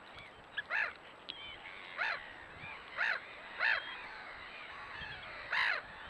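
Eurasian oystercatchers calling: five loud, sharp piping calls at irregular intervals, over fainter whistling and twittering calls of other waterbirds.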